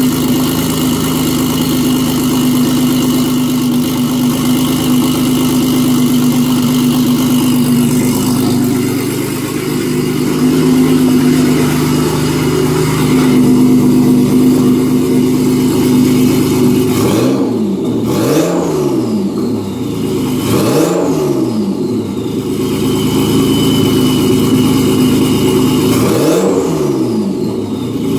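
Alfa Romeo GTV's turbocharged 2.0 V6, fitted with a Garrett GT2560R turbo and almost no downpipe, idling steadily, then blipped three times in the last third. A high turbo whistle falls in pitch after the blips as the turbo spins down.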